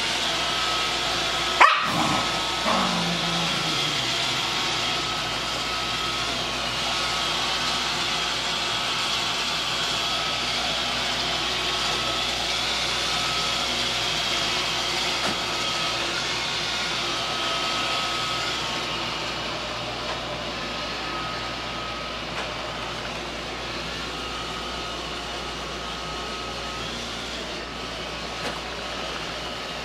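A Shiba Inu gives one short, high yelp about two seconds in that slides down into a lower sound falling in pitch, while another Shiba licks at its mouth and teeth. A steady whooshing background noise runs underneath.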